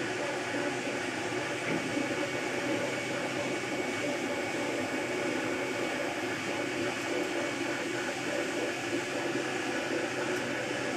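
MakerBot Replicator 2 3D printer printing in PLA: a steady whir with a few held tones from the stepper motors driving the extruder head, over the hiss of its cooling fan.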